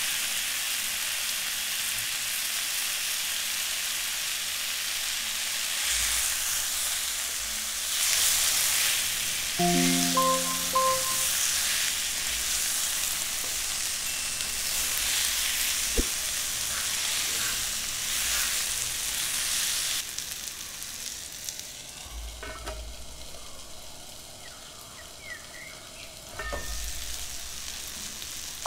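Prawns frying in a thick tomato-chilli masala in a non-stick pan, sizzling steadily while being stirred; the sizzle weakens after about twenty seconds. A brief run of pitched tones sounds about ten seconds in.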